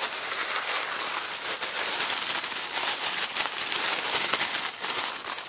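Tissue paper and wrappings crinkling and rustling steadily as they are handled and searched through.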